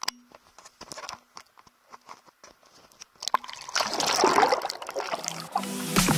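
Water splashing and sloshing, louder in the second half, after a few scattered light clicks. Music starts right at the end.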